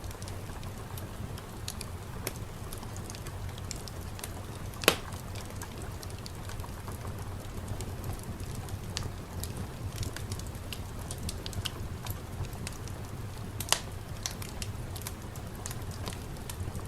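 Wood fire crackling with irregular sharp pops, two louder ones about five and fourteen seconds in, over a steady hiss and low rumble.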